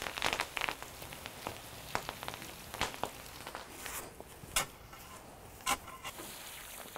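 Water poured from a watering can spattering onto quicklime in a sand pit, then scattered crackling as the quicklime slakes with the water and steams. Two sharp strikes of a shovel into the sand come in the second half.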